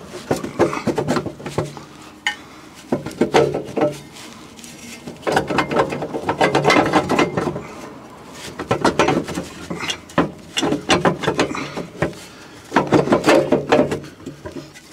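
A rusty metal pipe being twisted and worked loose under a vehicle, clanking and scraping against the metal around it. It comes in several bouts of rattling knocks with short pauses between them.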